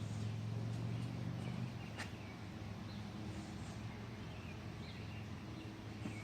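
Quiet outdoor ambience: faint bird chirps over a steady low hum, with a single sharp click about two seconds in.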